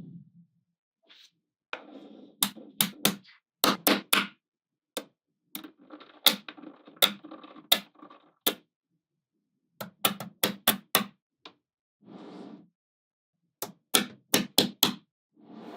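Small magnetic balls snapping together with sharp clicks, in quick clusters of three to six, with soft rubbing and rolling of balls against one another between the clicks and short pauses.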